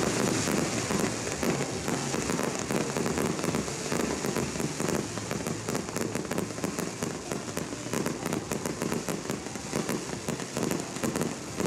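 Fireworks crackling: a dense, continuous patter of small sharp pops, like heavy rain.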